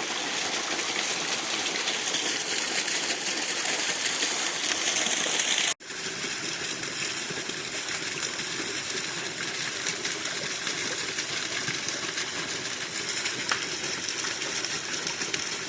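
Small waterfall, about 5 m high, rushing and splashing as a steady hiss of falling water. The sound drops out for an instant about six seconds in, then resumes.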